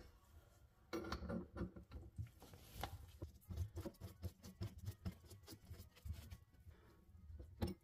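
Light, irregular clicks and taps of a wrench and metal fittings as the braided supply-line nuts are tightened onto the angle shut-off valves under the sink.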